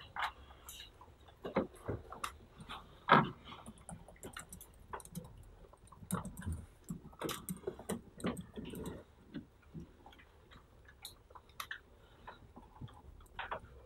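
Scattered irregular light clicks and taps of small handling noises in a quiet classroom, with one louder knock about three seconds in.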